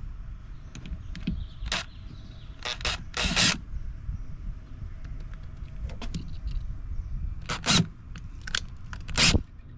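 Cordless Makita drill/driver run in short trigger pulls, driving a bolt into a pre-drilled pilot hole in a jet ski's plastic hull to thread it. There are several brief whirs, the longest about three seconds in and another near the end.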